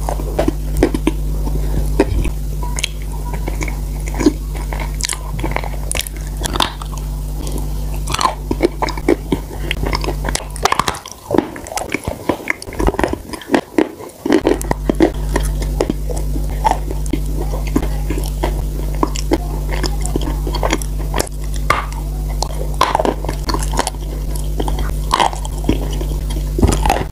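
Close-miked eating: chewing, lip smacks and wet mouth clicks as pieces of food coated in thick chocolate sauce are bitten and chewed. A steady low electrical hum runs underneath and cuts out for a few seconds about halfway through.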